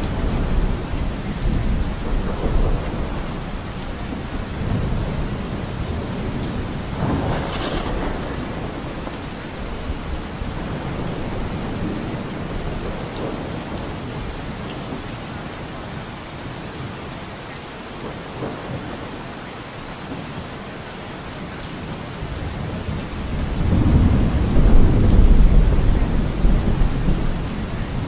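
Steady rain falling, with thunder rumbling in the background; a long, deep roll of thunder swells near the end and is the loudest part.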